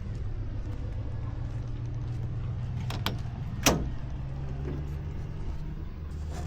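Steady low mechanical hum, with two sharp clicks about three seconds in and a single louder sharp knock just after.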